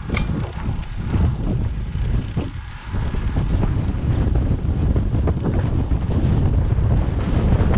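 Wind buffeting the camera's microphone during a fast road-bike descent: a dense, low rumble that grows louder from about three seconds in.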